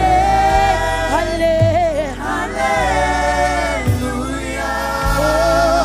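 Live gospel worship music: singers holding long, wavering notes into microphones, with backing voices, over a band led by keyboard and guitar with a steady bass line.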